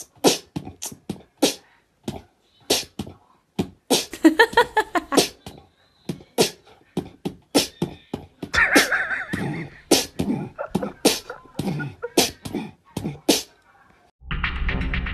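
Mouth percussion like beatboxing: runs of quick, sharp clicks and pops in a loose rhythm, broken by a few short voiced bursts and brief pauses. Music cuts in near the end.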